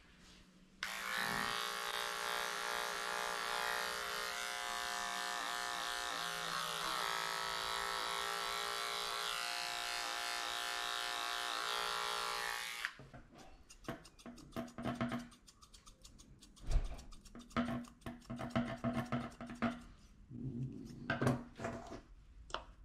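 Cordless pet hair clipper running steadily for about twelve seconds, its pitch dipping briefly midway, then switched off. After it come scattered short knocks and rustles.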